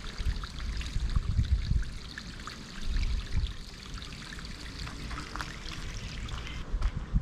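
Small stream trickling over rocks in a steady, gentle flow, with a low rumble underneath that swells and fades.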